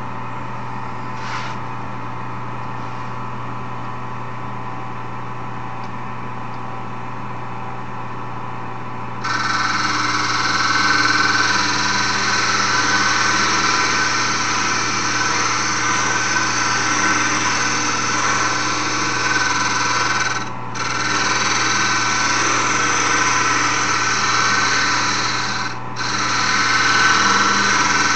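Wood lathe running steadily. About nine seconds in, a turning tool is pressed into the spinning wooden file handle, adding a loud scraping cut that lifts off briefly twice.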